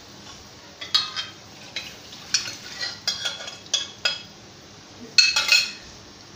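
Aluminium saucepan and spatula clinking and scraping against an aluminium kadai as boiled dal is tipped into the tempering, a string of sharp ringing clinks with the loudest burst near the end.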